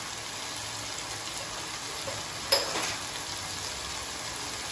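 Chicken pieces frying in oil in a non-stick kadai, a steady soft sizzle. One short knock about two and a half seconds in.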